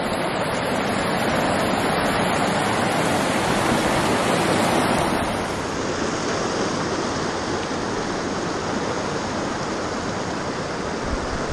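Steady rush of a shallow, rocky mountain trout stream running over riffles and a small cascade.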